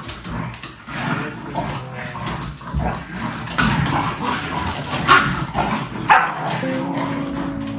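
Dogs yipping and barking in short, irregular bursts, with three sharper, louder barks in the middle. Guitar music comes in near the end.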